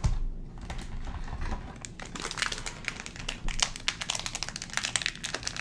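Foil wrapper of a One Piece card game booster pack crinkling as it is handled and opened: a dense run of quick crackles that grows busier after the first second or so.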